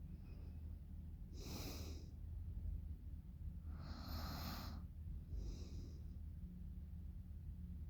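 A sleeping woman's heavy breathing in deep sleep: three airy, hissy breaths, the middle one the longest, over a steady low hum.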